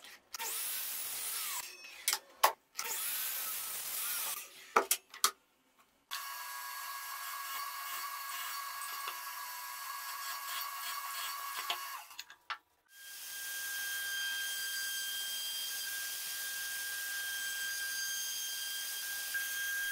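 A mitre saw cutting a block of wood, running up and down twice with sharp knocks between. A drill then bores into the wood at steady speed. About 13 seconds in, a router in a router table starts up and runs steadily with a high whine, shaping the block.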